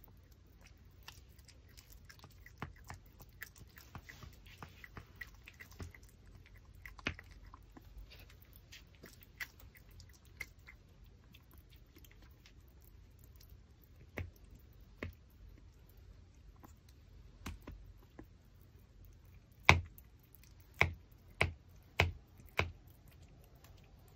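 A Pomeranian chewing a raw pork backbone: scattered soft clicks and crunches of teeth on bone, then five sharp, louder cracks in quick succession near the end.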